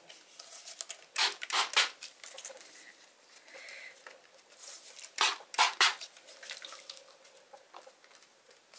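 Hand trigger spray bottle squirting water onto the back of a loose stretched canvas to tighten it. Two runs of three quick sprays, the first about a second in and the second about five seconds in.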